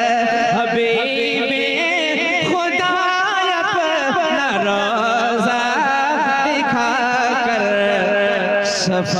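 A man's voice singing a naat through a microphone and PA, in long ornamented held notes that waver and glide in pitch.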